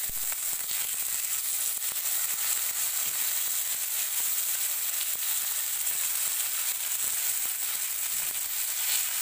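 Fish steaks shallow-frying in oil on a flat iron tawa: a steady sizzle with faint scattered ticks. The fish is close to done, and a slotted spoon is moving them in the pan.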